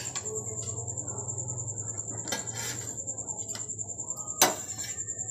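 Egg paratha on a hot tawa over a gas burner with a faint sizzle, a few light spatula clicks, and a sharp metal knock about four and a half seconds in as it is lifted off the pan. A steady high whine sits underneath.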